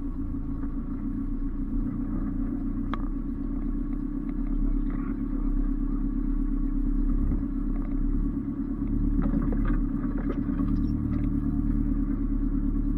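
Off-road 4x4's engine running steadily, a low, even rumble, with a sharp click about three seconds in and a cluster of light clicks and scrapes around nine to eleven seconds.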